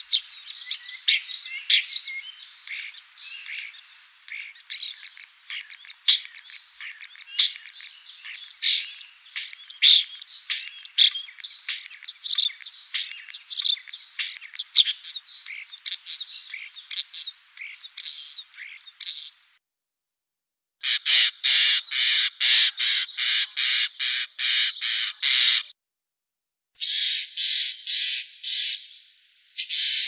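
Common starling singing: a busy run of clicks, chirps and short whistles, with a string of high whistles repeated about every two-thirds of a second toward the middle. After a short break it switches to series of harsh, rattling notes, about three a second.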